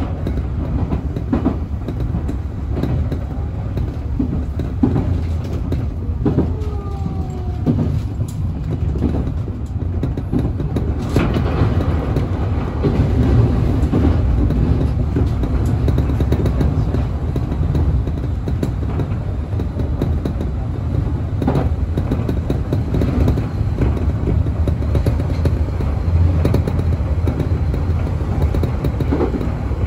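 Running noise inside a Nankai 1000-series electric train at speed: a steady low rumble with wheels clicking over rail joints. About a third of the way in, a louder rush sets in as a train passes on the next track.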